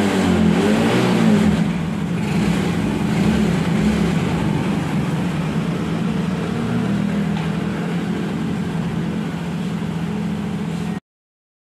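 Yamaha Mio J scooter's single-cylinder engine revved with the throttle, then settling to a steady run. It is being revved to burn off exhaust smoke after a repair for lost compression. The sound cuts off abruptly near the end.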